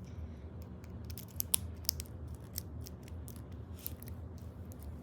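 Small irregular metallic clicks and taps of a Master Lock No. 140 brass padlock being handled, over a steady low hum.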